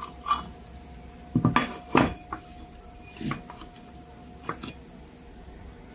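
Irregular knocks and clinks of a metal amplifier chassis being handled and shifted on a workbench, about half a dozen, the loudest about two seconds in. A faint steady tone lies underneath.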